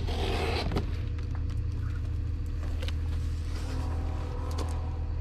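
A taped cardboard box being opened: a short tearing scrape as the flaps are pulled apart at the start, then a few light cardboard knocks. A steady low engine-like hum runs underneath throughout.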